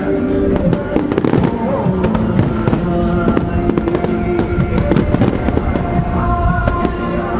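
Fireworks bursting and crackling in quick succession, many bangs a second, over music with held notes.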